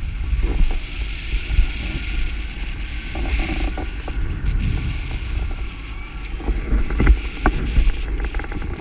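Wind rushing and buffeting over the microphone in paraglider flight, a loud, steady low rumble, with a few sharp clicks a little after the middle.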